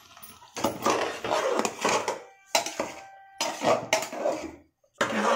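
A metal ladle scrapes and clatters against the inside of an aluminium pressure cooker as a wet semolina halwa mixture is stirred. It comes in several bursts with short pauses, stops briefly near the end, and then starts again.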